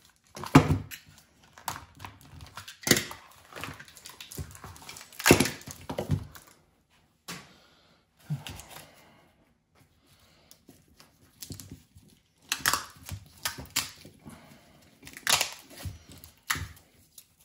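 GM electric-fan wiring harness being stripped by hand: its plastic loom and tape crinkling and tearing, with irregular sharp rips and cracks and a quieter spell about halfway.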